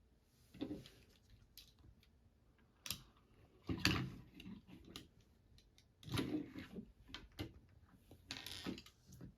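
Plastic building bricks clicking and rattling as the pieces are handled and pressed together: scattered sharp clicks, with a few short bursts of rattling.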